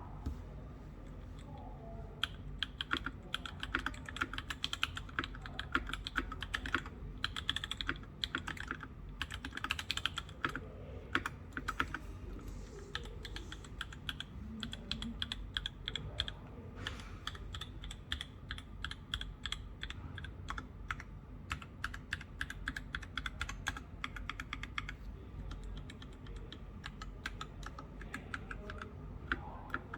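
Mechanical keyboard being typed on: a fast, continuous stream of keystrokes with a creamy, muted sound, starting about two seconds in, over a faint low hum.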